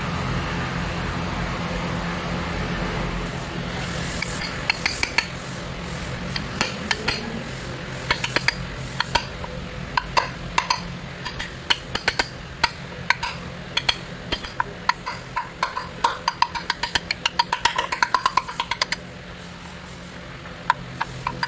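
Ball-peen hammer tapping a new rear crankshaft oil seal into its housing, seating it by hand with an improvised driver because the proper seal installer tool was not to hand. Many light, irregular metallic taps start about four seconds in and come faster later, over a steady low hum.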